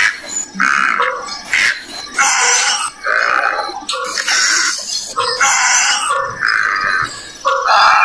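Short animal calls repeated about every half second to a second, alternating between a lower and a higher note.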